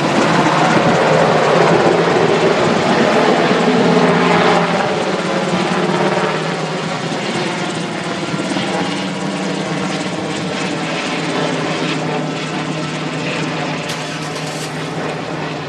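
Sikorsky UH-60 Black Hawk helicopter, its rotor and twin turboshaft engines loud as it passes low overhead after takeoff. About four seconds in the sound begins to fade gradually as it flies away.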